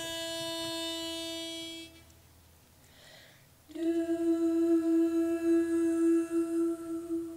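A pitch pipe sounds one steady note for about two seconds, giving the starting pitch. After a short pause, the women's barbershop quartet hums that same note back, steady with a slightly wavering level, tuning to the pipe before singing.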